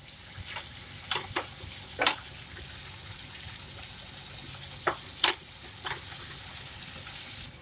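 Chopped onion and tomato sizzling in hot mustard oil in a non-stick pan, the tempering being fried until soft. A wooden spatula scrapes and taps against the pan several times as it is stirred.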